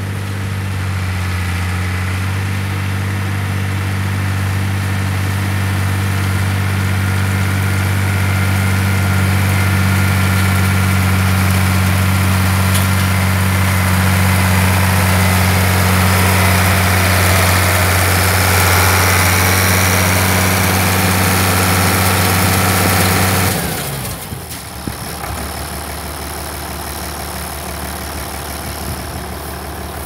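International 966 tractor's six-cylinder diesel engine running steadily as it pulls a New Holland 650 round baler past, along with the baler's working machinery. It grows louder as it nears, then drops off sharply about three-quarters of the way through to a fainter, lower hum as it moves away.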